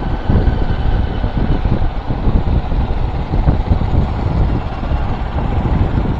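Wind buffeting the microphone over the rumble of a moving vehicle, uneven and gusty.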